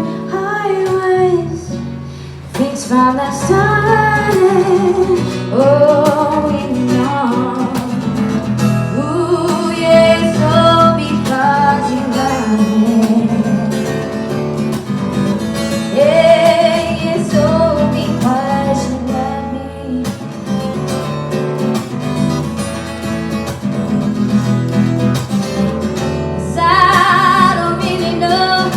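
A woman singing a slow song to strummed acoustic guitar accompaniment in a live performance.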